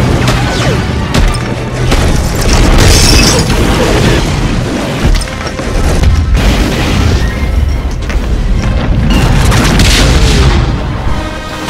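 Film battle sound mix: repeated explosions and crashing debris over a loud orchestral score.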